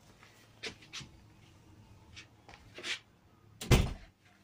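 Rustling and a few light taps as someone walks along a carpeted hallway holding a phone, then one loud thump near the end.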